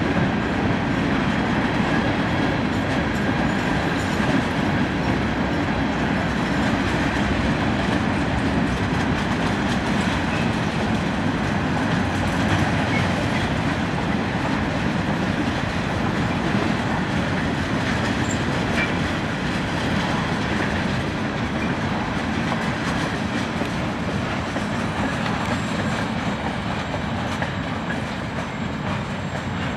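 Freight cars of a slow-moving train rolling past, a steady rumble and rattle of steel wheels on the rails, easing slightly near the end.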